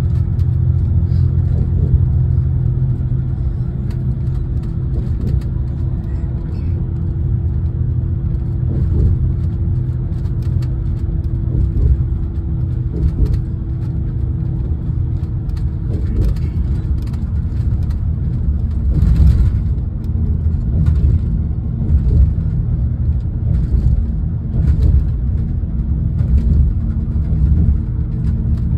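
Cabin noise of a road vehicle driving at speed on an expressway: a steady low engine and tyre rumble with a constant hum that drops to a lower pitch about two-thirds of the way through.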